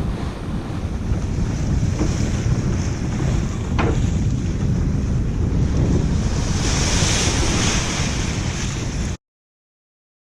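Wind buffeting the microphone over rushing, washing water, like a boat under way at sea, a steady low rumble with hiss that cuts off abruptly about nine seconds in.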